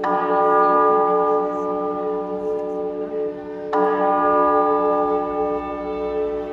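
Concert intro music over a large venue's sound system: a sustained, bell-like chord struck at the start and again about three and a half seconds in, each strike ringing on.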